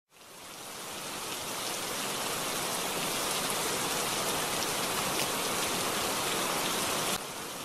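Torrential monsoon rain falling on floodwater: a steady, even hiss of rain. It fades in at the start and drops off suddenly near the end.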